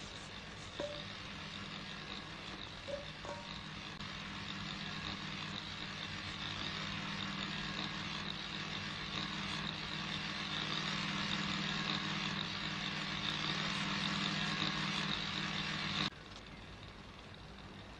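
Steady drone of a small engine-driven generator, slowly growing louder, then cutting off suddenly near the end.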